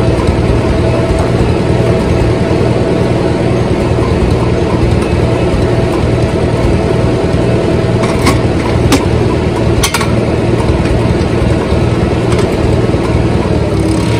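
Farmall tractor engine idling steadily, with a few sharp clicks about eight and ten seconds in.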